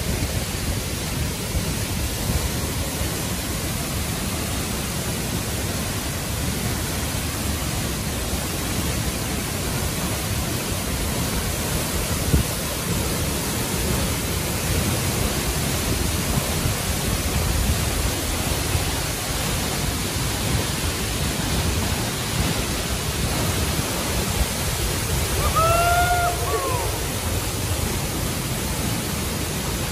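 Tall waterfall pouring into its plunge pool: a steady, dense rush of falling water. Near the end a short faint call rises and falls over it.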